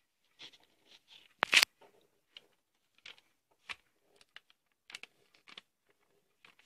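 A pen scratching on paper in short, irregular strokes as someone draws, with a louder knock about a second and a half in.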